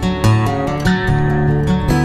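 Instrumental music led by a strummed acoustic guitar, its chords changing every half second or so.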